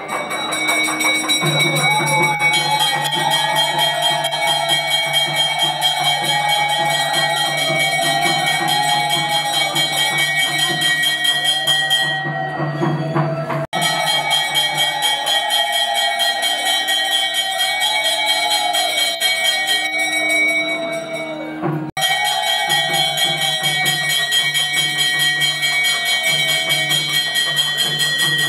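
Temple music: a wavering, ornamented melody over a steady low drone, with bells ringing rapidly throughout. It is broken twice by abrupt cuts.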